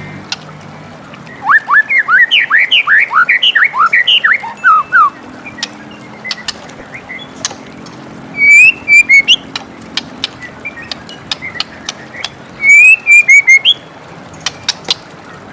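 White-rumped shama singing: a quick run of rising whistled sweeps starting about a second and a half in, then two shorter bursts of clear whistled notes, around the middle and near the end, with sharp clicks scattered between phrases. A steady hiss runs underneath.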